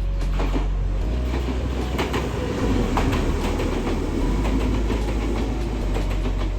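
Kintetsu Minami-Osaka Line electric train passing close by, a steady rumble with irregular clacks of its wheels over the rail joints.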